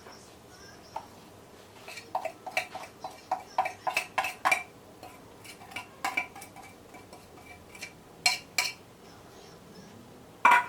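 A metal cooking utensil clinking against a metal pot or pan: a quick run of ringing knocks, then scattered single knocks, and a louder clang near the end.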